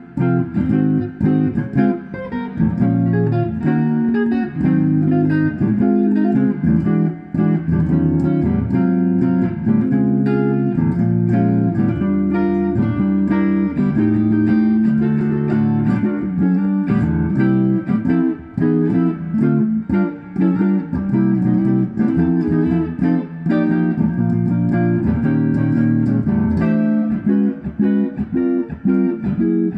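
Solo electric jazz guitar played through an amplifier: a slow ballad with chords, bass notes and melody played together on the one guitar.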